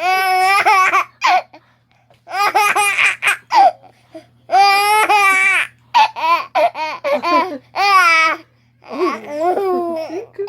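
A young child laughing hard in about six high-pitched bouts of giggling, each a second or so long, with short breaths between them.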